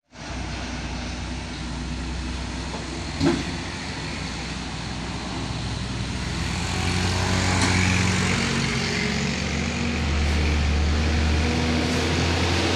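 Road traffic: a heavy truck's engine drones low and steady as it approaches, growing louder over the second half. There is a short knock about three seconds in.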